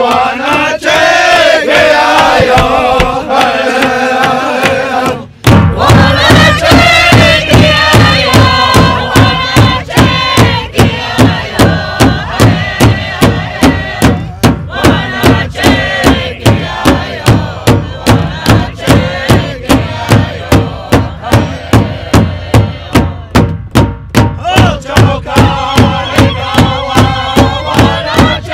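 A group of voices chanting, then after a sudden cut a steady, even drum beat with singing over it.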